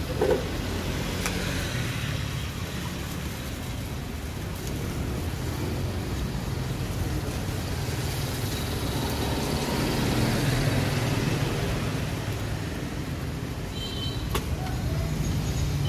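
Road traffic noise: a steady low rumble of passing vehicles that swells and fades, with a few faint clicks.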